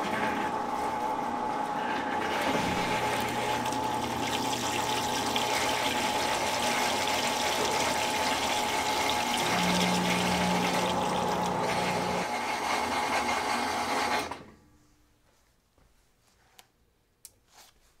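Whirlpool top-load washer's drain pump running with a steady whine, water gushing out of the drain hose into the standpipe. It cuts off suddenly about fourteen seconds in, followed by a few faint clicks.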